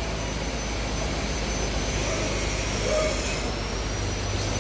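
Steady machinery drone with a thin high whine running through it and a hiss that swells about two seconds in and fades a second and a half later.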